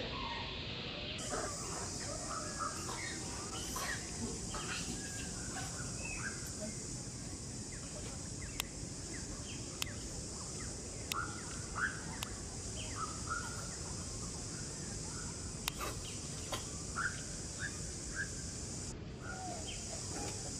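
Birds chirping: many short, scattered high chirps over a steady hiss, with a few sharp clicks.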